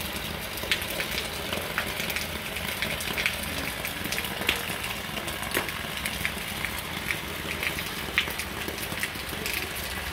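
Heavy rain falling: a steady hiss dotted with the sharp taps of drops striking close by.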